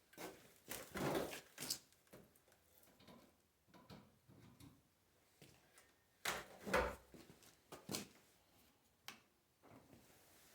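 Handling noises: scattered knocks, clunks and rustles of objects being moved and set down, loudest about a second in and again around six to seven seconds in. No motor is running.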